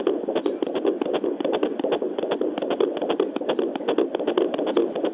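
Fetal heartbeat at 15 weeks 3 days, picked up by a Doppler ultrasound probe: a fast, steady rhythm of pulses over a constant hiss.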